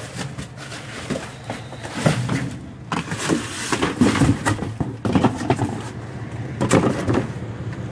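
Rummaging through a dumpster: irregular rustling, scraping and knocking of trash being handled, busiest in the middle.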